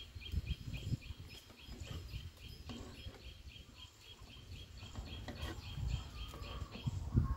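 A high chirp repeated steadily about four or five times a second, fading out near the end, over dull low thumps, the loudest of them near the end.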